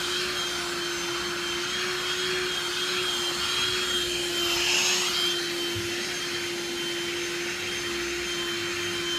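Vacuum cleaner running steadily, a constant motor hum with a high whine. About halfway through there is a brief louder rushing hiss.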